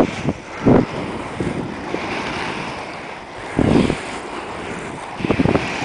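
Wind buffeting the microphone of a camera carried on a fast downhill rollerblade run, over a steady rush of skate wheels rolling on asphalt. Three loud gusts stand out: about a second in, near four seconds, and near the end.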